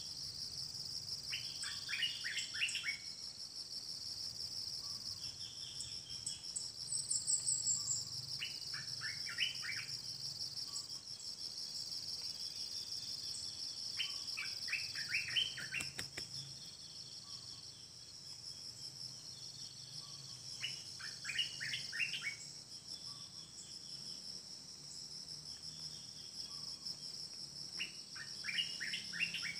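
Steady high-pitched insect chorus, with a bird giving a short burst of quick descending notes about every six to seven seconds.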